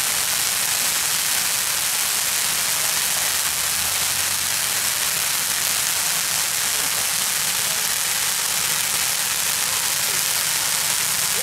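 A row of ground fireworks fountains spraying sparks with a steady, even hiss.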